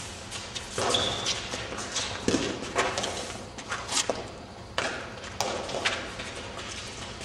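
Eton Fives rally: the ball knocking sharply off the court's stone walls and gloved hands, about eight knocks with echo, amid players' running footsteps and a brief shoe squeak about a second in.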